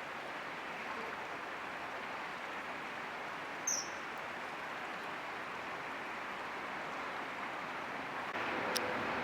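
Steady rushing outdoor background noise, with one short high-pitched bird chirp a little under four seconds in. The background gets louder near the end, with a sharp click.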